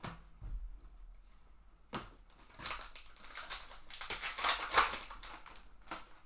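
Foil wrapper of a trading-card pack crinkling and tearing as it is opened, a run of crackles that is loudest about two thirds of the way through. A light knock comes right at the start.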